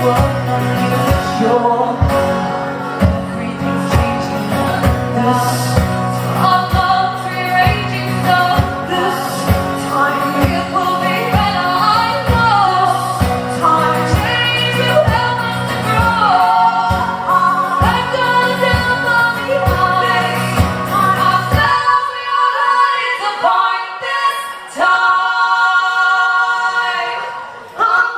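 Song performed live: women's voices singing in harmony over instruments with a steady low beat of about two strikes a second. About three-quarters of the way through, the instruments drop out and the voices carry on alone.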